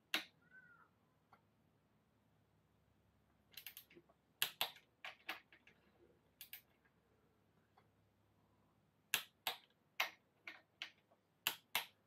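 Sharp clicks of a torque wrench breaking over as bike bolts reach their set torque. The clicks come at irregular intervals, singly and in quick pairs.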